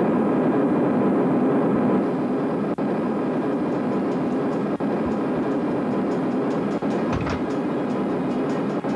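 Steady droning of a jet airliner's engines as heard inside the cabin in flight, dipping briefly about every two seconds.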